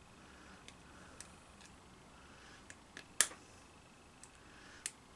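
Light clicks and ticks of small metal parts being handled and fitted together by hand, with one sharper click about three seconds in and another near the end.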